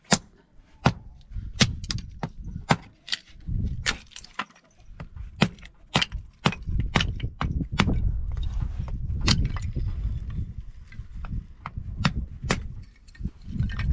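Hatchet chopping small pieces of wood into kindling: a run of sharp, irregular wooden cracks and knocks, about one or two a second.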